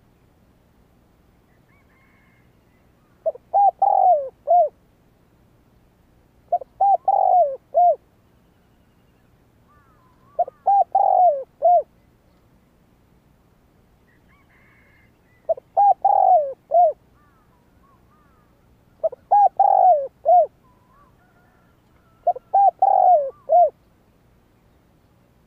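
Spotted dove cooing: six short phrases of several low coos each, repeated every three to four seconds.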